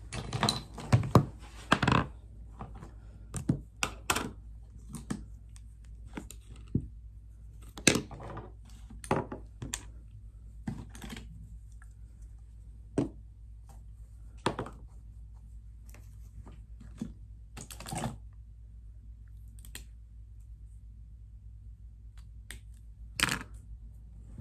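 Irregular clicks, taps and knocks of toiletry bottles and small items being picked up, handled and set down on a desk. The handling is busiest in the first two seconds, with a louder knock near the end.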